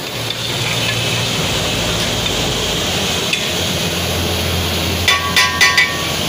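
A metal rod knocking against the rim of an aluminium cooking pot (degh): about four quick, ringing clinks near the end. A steady rushing background noise runs throughout.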